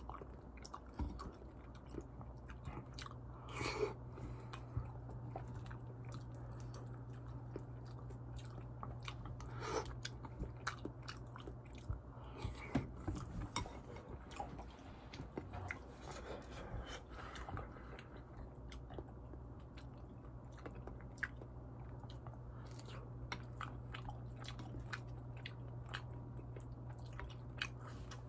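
A person chewing and eating curry rice: soft wet chewing with many small, irregular mouth clicks and smacks, over a steady low hum.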